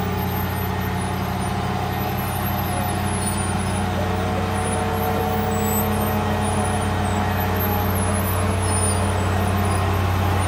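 Diesel engine of a railcar mover running steadily under load as it moves a steam locomotive along the track: a low, even drone that grows a little louder toward the end.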